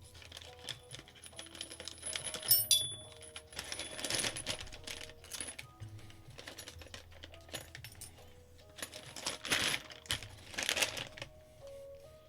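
Small metal screws and bolts clinking and rattling as they are handled and sorted, with a sharp clink about two and a half seconds in and two longer rattles near the end, over background music.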